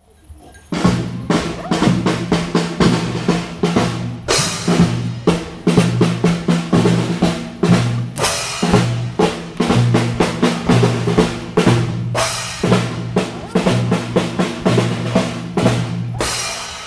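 Loud percussion-driven music on drums and clashed hand cymbals: a fast, dense drumbeat with a cymbal crash about every four seconds over a repeating low bass line. It starts about a second in.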